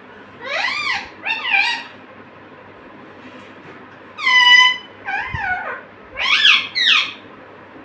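Pet parrot calling: six short, high, squeaky calls that rise and fall in pitch, coming in loose pairs, with one steadier held note about halfway through.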